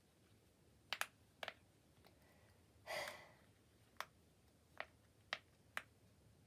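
Silicone pop-it fidget toy being pressed, its bubbles popping through with about eight soft, separate clicks at an uneven pace, and a brief, slightly longer sound about three seconds in.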